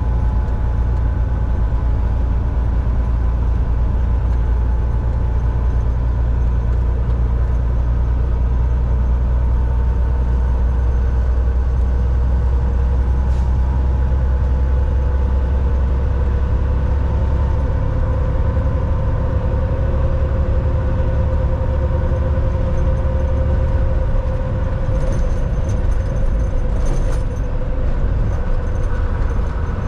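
Volvo VNL 760 semi truck driving: a steady low engine and road rumble with engine tones that drift slowly in pitch, and a few light clicks or rattles near the end.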